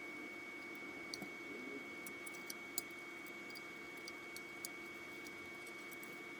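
Scattered light clicks and ticks at irregular intervals, the sharpest about three seconds in, over a steady faint hum and a constant high thin whine.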